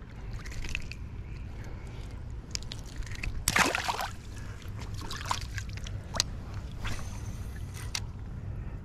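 River water sloshing and splashing close by, over a steady low rush. The sharpest splash comes about three and a half seconds in, as a small smallmouth bass goes back into the water, with lighter splashes near the end.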